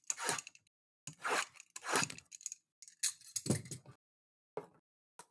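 Plastic wrapping and foil being torn off a trading card hobby box and its packs, in a series of short rips and crinkles.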